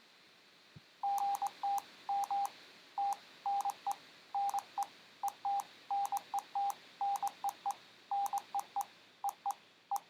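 Morse code app on an Android phone sounding a longer message as a beeping tone keyed into short dots and longer dashes, in letter groups separated by short gaps. The tone starts about a second in, just after a single small click.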